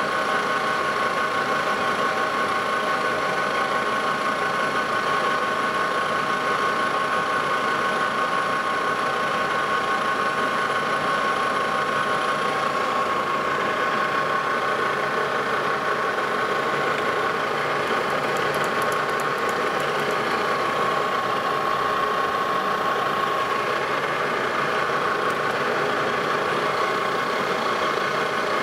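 Lodge & Shipley engine lathe running under a facing cut, the tool taking a light pass across the face of a flange held in the chuck. The machine gives a steady, high-pitched whine, and one of its upper tones fades away about halfway through.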